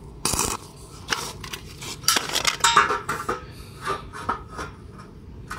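Steel truss bars clanking against each other and the ground as they are handled, an irregular run of ringing metallic knocks that is thickest in the middle.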